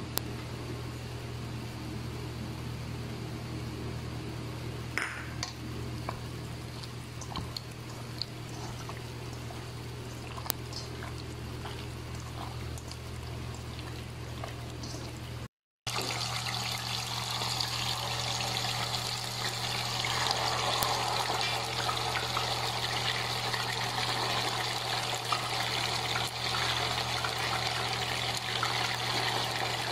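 Light clicks and handling sounds over a steady low hum while raw chicken is mixed in a metal bowl; after a short break halfway through, chicken pieces sizzling steadily as they deep-fry in hot oil in a pan.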